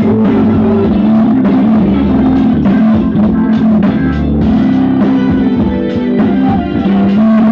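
Loud music with guitar, bass and drums, played through a 5200 amplifier and speakers in a sound test; heavy in the bass.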